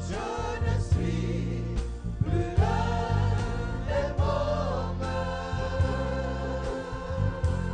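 Live gospel worship song: several voices singing together into microphones over a steady instrumental backing with bass and a beat.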